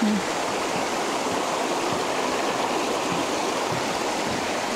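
Shallow creek running over rocks and stones, a steady rushing babble of flowing water.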